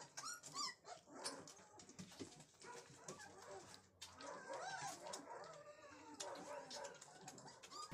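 A young puppy squeaking and whimpering faintly while it is bottle-fed: many short, high, rising-and-falling squeaks, mixed with soft clicks.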